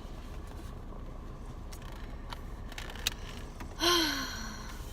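Low steady background hum with a few faint clicks, then near the end a short sighing vocal sound from a person, rising and then falling in pitch.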